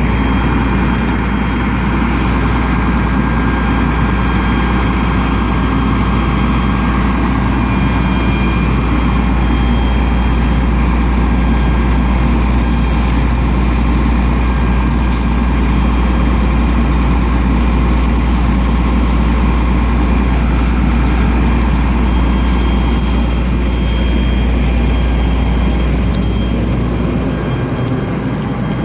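An engine running steadily and loudly, with a strong low rumble and a few steady whining tones over it, easing off slightly near the end.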